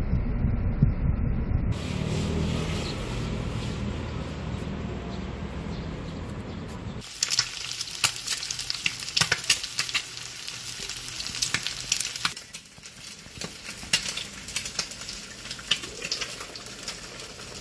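Eggs frying in a nonstick pan, sizzling with many sharp crackles of spattering oil, starting about seven seconds in after a stretch of low bus engine rumble and a steady hum.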